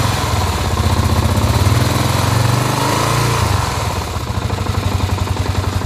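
Kawasaki KLR650's single-cylinder engine running, revved up briefly about a second in and settling back to idle about four seconds in. Beneath it is a knocking and grinding in time with the engine, which the owner has heard since the winter lay-up and cannot explain.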